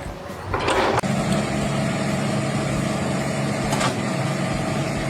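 A machine's engine running steadily, with a short noisy rush just before it sets in about a second in.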